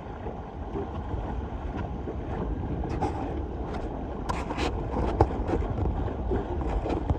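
Wind rumbling on the microphone aboard a sailboat under way, with a steady wash of water noise. A few sharp ticks come a little past halfway.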